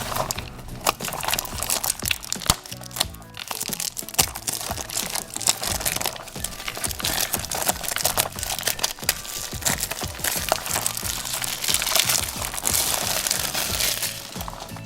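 Packaging crinkling and crackling as it is torn open and handled, with many sharp crackles, busiest in the second half, over light background music.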